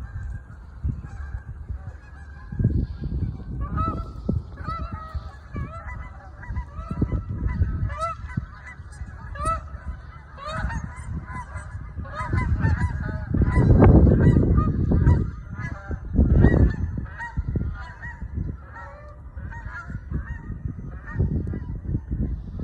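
A flock of geese honking in flight: many short, overlapping honks that keep coming. Loud low rumbles come and go underneath, the heaviest about two-thirds of the way through.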